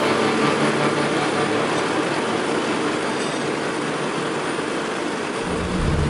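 Steady rushing noise of hot asphalt mix being tipped from a tipper trailer into a road paver's hopper, with heavy machinery running.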